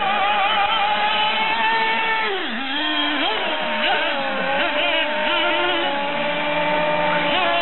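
Several radio-controlled off-road model cars racing, their small engines making a high, buzzing whine. Several engine tones overlap, each rising and falling in pitch as the cars accelerate and lift off through the corners.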